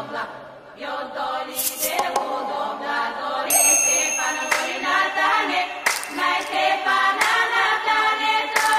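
Background music of a choir singing in a slow, chant-like style.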